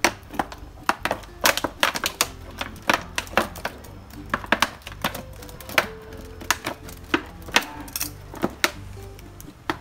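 Scissors cutting through a thin plastic water bottle: a run of sharp, irregular snips and clicks, a few a second.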